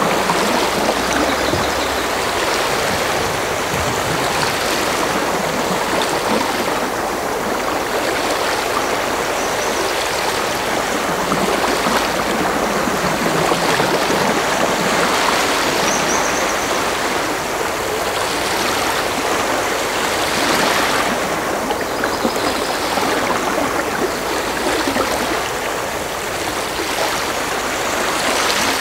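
Steady running, bubbling water with no breaks, with a few short high-pitched notes every several seconds.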